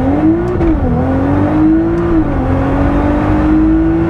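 Nissan GT-R's twin-turbo V6 accelerating at full throttle from a launch-control start, the engine note climbing in pitch through the gears with two quick upshifts, one under a second in and one about two seconds in, then pulling steadily higher.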